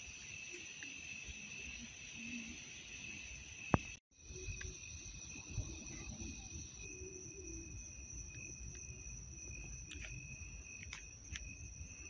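Night insects trilling steadily on two high pitches, with a faint low rumble underneath. The sound cuts out for a moment about four seconds in, and there are a few light clicks near the end.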